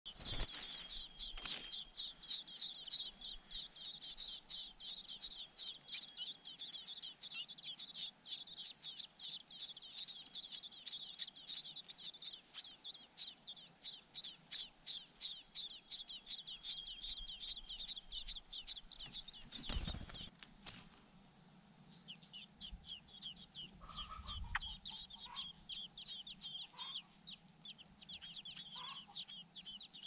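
Thrush nestlings begging: a dense, rapid run of high-pitched cheeping calls. A thump and a pause of about two seconds come about two-thirds of the way in, and then the cheeping starts again.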